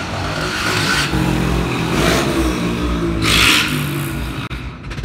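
A motor vehicle engine running, with several short rushing noises, the loudest about three and a half seconds in.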